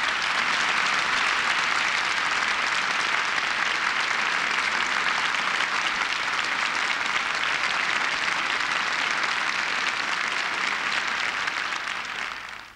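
A large audience applauding: dense, steady clapping that cuts off suddenly near the end.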